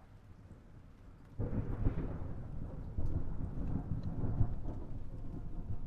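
Thunder rumbling as a sound effect, starting suddenly about a second and a half in and swelling again a couple of seconds later.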